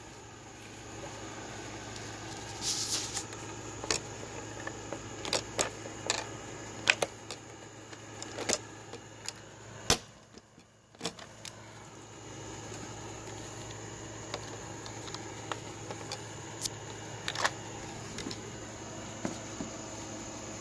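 Scattered light clicks and metallic taps from aluminium angle and pop rivets being handled, irregular and a few seconds apart, over a faint steady background.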